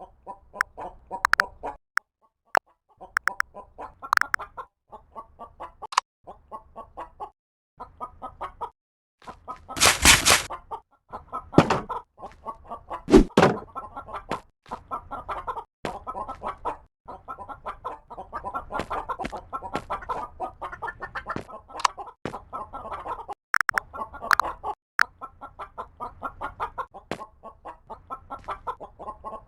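A flock of chickens clucking continuously, many birds calling over one another. About a third of the way in, a loud burst of noise lasting about a second stands out above the clucking.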